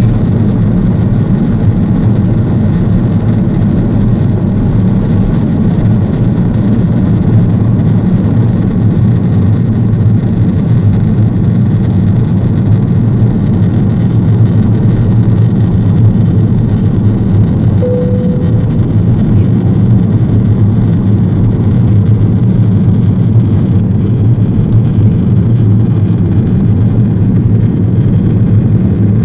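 Cabin noise of an Airbus A330-200 climbing out just after takeoff: the engines at takeoff thrust and the rushing air give a steady, loud, deep rumble heard from inside the cabin. A short tone sounds once about two-thirds of the way through.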